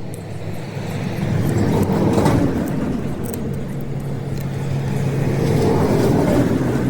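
A small electric motor running steadily, a hum with an airy hiss that swells twice.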